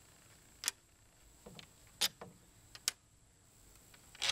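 A few sharp clicks and taps, about a second apart, as the plastic taillight assembly of a VW Vanagon is handled and worked loose from the rear body.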